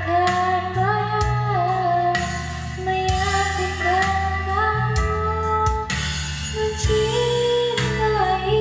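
Woman singing karaoke into a microphone, her voice amplified through a large speaker over a backing track with a strong bass line.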